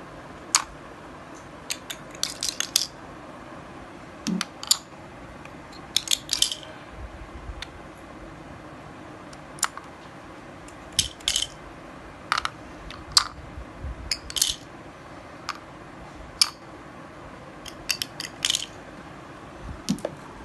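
Wooden pieces of a magnetic fishing game clicking and clacking as painted wooden fish are picked up with the magnet rod and knocked against the wooden tray and each other. Irregular sharp clicks, often several in quick succession.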